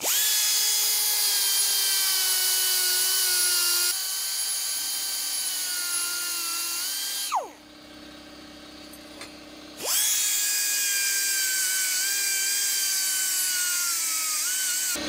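Pneumatic straight die grinder with an abrasive stone point whining at high speed as it grinds a steel grate. About seven seconds in it is let off and spins down with a falling pitch, then starts again, rising back to full speed about ten seconds in. The stone is cutting only slowly.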